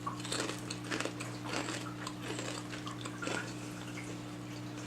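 Quiet, irregular crackles and clicks of Karamucho hot chili potato chips being handled and crunched, over a steady low hum.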